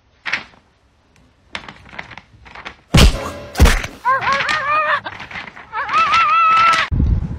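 A box knocking against a concrete floor as a dog pushes it around: faint knocks, then two loud thunks about half a second apart. These are followed by a high, wavering whining cry in several short rising-and-falling notes and one longer note.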